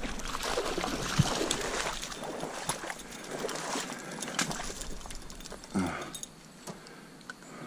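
Water splashing and sloshing, with scattered light clicks. It is loudest in the first couple of seconds and dies down after.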